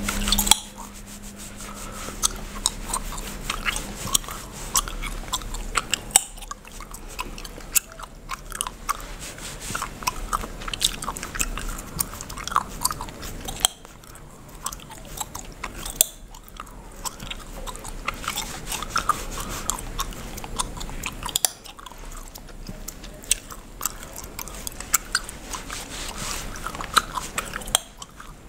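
Bubblegum chewed and cracked close to the microphone: wet chewing with sharp snapping pops at irregular intervals, with a few brief pauses.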